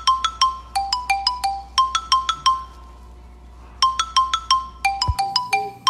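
Background music: a bright chiming melody of quick mallet-like notes, pausing for about a second in the middle before going on.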